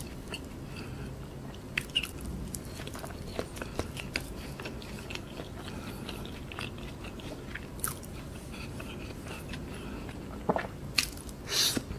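A person chewing soft food up close to the microphone, with scattered small wet mouth clicks and smacks throughout and a few louder bites about ten seconds in.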